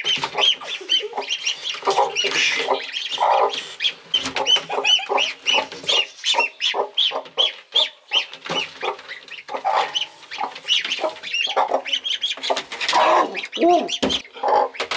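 Ducklings peeping in a fast run of high, repeated chirps while a broody mother hen clucks over them, defending the ducklings she has adopted as a hand reaches for them.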